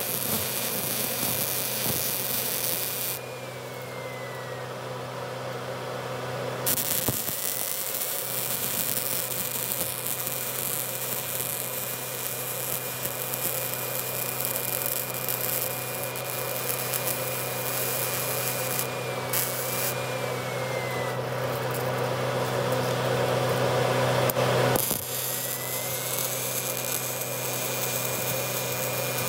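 Electric welding arc on steel giving a steady crackling hiss, with a steady hum and a high whine from the welding machine underneath. The arc stops about three seconds in and strikes again about four seconds later, then breaks off briefly near the end.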